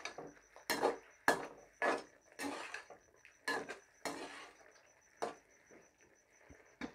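A spoon scraping and knocking against a cooking pot as chicken gizzards and green chillies are stirred and fried. There are about seven strokes in quick succession over the first four seconds, then two more, spaced apart.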